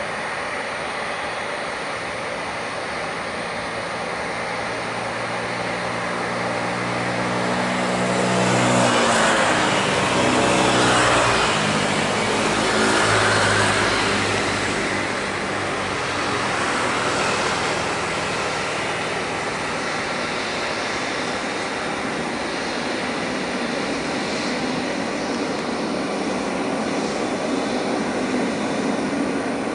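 Boeing 777-300ER's twin GE90 jet engines at takeoff power as the airliner passes by. The jet noise swells to its loudest about nine to fourteen seconds in, with the engine tones sliding down in pitch as it passes. It then settles into a steady rumble.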